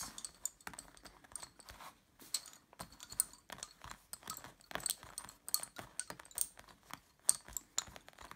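Wooden lace bobbins clicking and knocking against one another in quick, irregular taps as pairs are lifted, crossed and set down while cloth stitch is worked.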